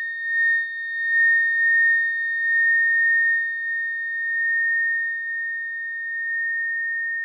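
A healing tuning fork, the crown-chakra fork of an angel-named set, ringing with one steady, high, pure tone and a faint higher overtone, its loudness swelling and easing gently as it sustains.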